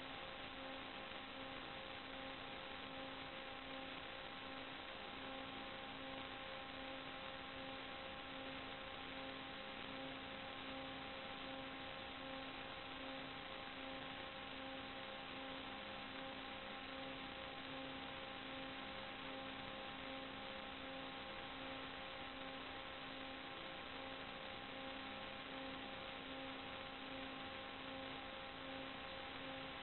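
Steady hiss with a faint hum of a few fixed tones, the lowest one pulsing evenly. This is static and interference on the audio of an analog FPV video link.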